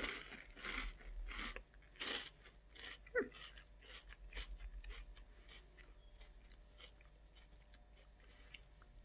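Chewing a puffed chocolate rice-cracker snack: crisp crunches at first, softening into quieter chewing as the puff dissolves in the mouth. One short, sharper sound comes about three seconds in.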